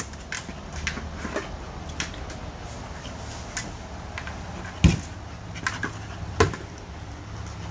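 A dog nosing and pushing a large rubber ball across artificial turf: light scattered knocks and clicks, with two heavier thumps about five and six and a half seconds in.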